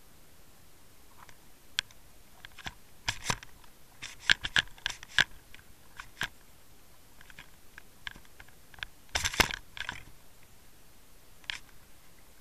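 Sharp clicks and knocks heard underwater through the camera on a fishing rig, in irregular clusters from about three to five seconds in and again just after nine seconds, with a few single clicks in between.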